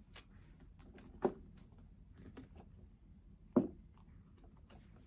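Faint handling sounds of small objects being moved and picked up: light taps and rustles, with two sharper knocks, one about a second in and one about three and a half seconds in.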